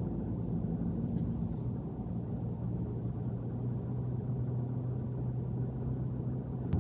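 Steady low vehicle rumble with a constant low engine drone, like a car running on the road.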